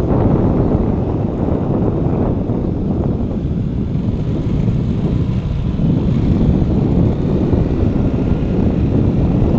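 Steady low rush of wind buffeting the microphone, mixed with the drone of the vehicle being ridden along the road.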